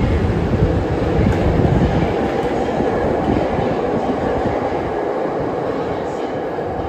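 Subway train running through the tunnel beyond the platform screen doors: a heavy low rumble that drops away about two seconds in, then slowly fades.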